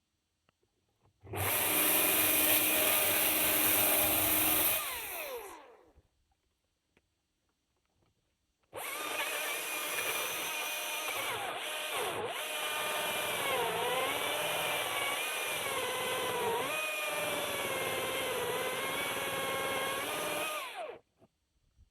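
Husqvarna 540i XP battery electric chainsaw. It runs briefly and spins down with falling pitch, then after a pause runs again for about twelve seconds, its pitch dipping several times as the chain bites into wood under load, and stops.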